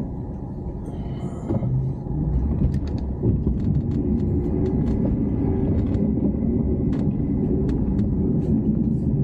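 Pickup truck engine and tyre rumble heard from inside the cab while driving through snow, getting louder about two seconds in, with scattered light ticks over it.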